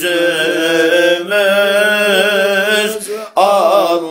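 A voice sings a Turkish Sufi hymn (ilahi) in long, drawn-out phrases over a steady low drone. The line breaks off briefly about three seconds in and the next phrase begins.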